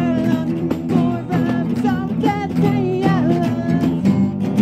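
Acoustic band playing live: strummed acoustic guitars holding a steady chord, with a wavering melody line over the top.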